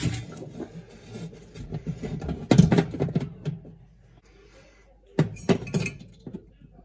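Irregular clicks, knocks and light rattles of a fan oven's replacement heating element and its wires being handled and fed back through the oven's back panel, with a quieter pause a little past the middle.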